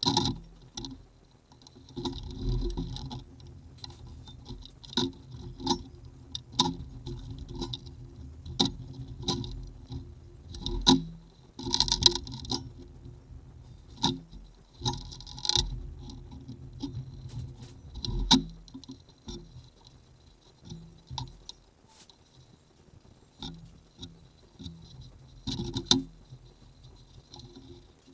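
Irregular small clicks, taps and light rattles of tools and small metal parts being handled during a hand repair of wiring, with a few denser bursts of handling.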